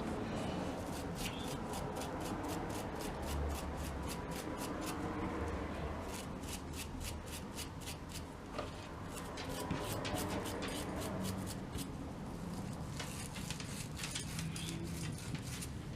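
Metal scouring pad scrubbed against a soldering iron's metal tip holder: a rapid, scratchy rubbing with short pauses, scraping off crusted flux and carbon.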